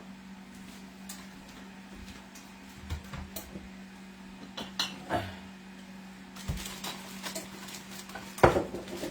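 Kitchen items being handled: scattered light knocks and clinks of jars, lids and utensils, with a louder knock about eight and a half seconds in, over a steady low hum.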